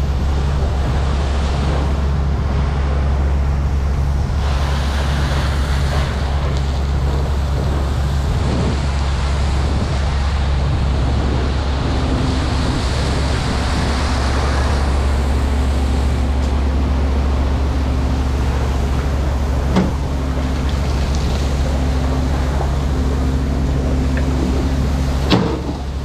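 Fire hose nozzle spraying a water stream, a steady hiss, over the constant drone of a running engine. Two sharp knocks come near the end.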